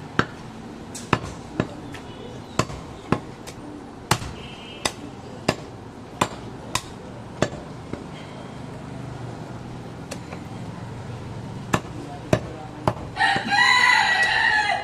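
Cleaver chopping goat meat on a wooden stump chopping block: sharp, irregular chops about every half second to second for the first eight seconds, then a few more later. Near the end a rooster crows loudly for about a second and a half.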